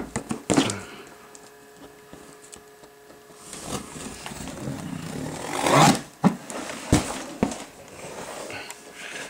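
Spyderco Endura folding knife blade scraping and slicing through a cardboard box. A loud scrape of the cardboard comes about six seconds in, followed by a few sharp knocks as the box is handled and tipped over.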